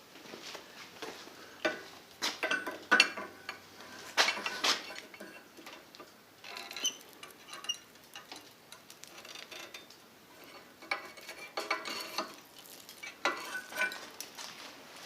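Irregular clinks, knocks and scrapes of metal objects being handled, a few of them ringing briefly, with pauses between clusters.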